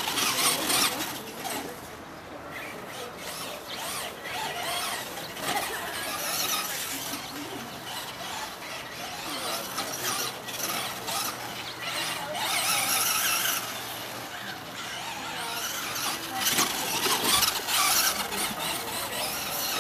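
Traxxas Slash radio-controlled short-course truck driving over dirt, its motor and drivetrain whining in surges as it speeds up and slows down.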